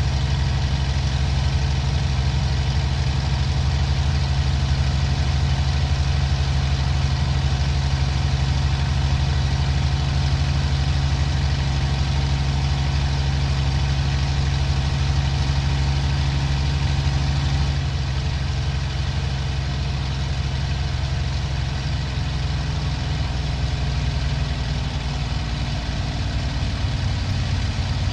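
Daimler-Benz DB 605 inverted V12 engine of a Messerschmitt Bf 109G-2, heard from the cockpit, running steadily at high power of about 2600–2800 rpm after the gear is raised. In the last few seconds the engine note falls as the propeller pitch control goes to automatic and rpm drops toward 2300.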